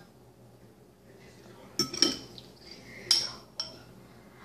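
A metal fork clinking against a ceramic dish: about four short, sharp clinks, two close together near the middle and two more a second or so later.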